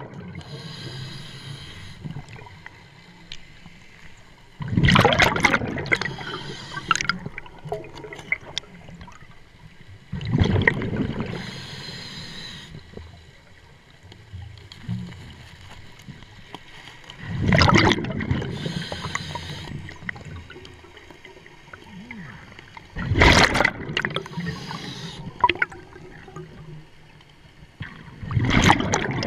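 Scuba diver's breathing through the regulator underwater: five loud bubbling exhalations, about one every five to six seconds, with a fainter hiss between breaths.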